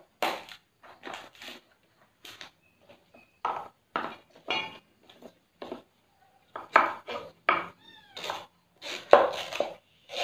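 Kitchen knife chopping taro stalks on a wooden cutting board: irregular sharp chops, about one or two a second.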